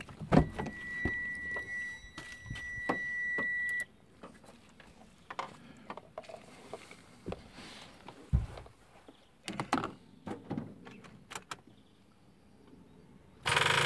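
A steady high electronic beep held for about three and a half seconds, then scattered clicks and knocks of handling, and a loud half-second rush of noise near the end.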